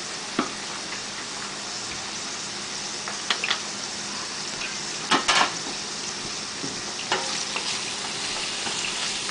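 Chicken pieces frying in hot oil with a steady sizzle, and a few sharp knocks of a utensil against the pan as they are stirred, the loudest just past the middle.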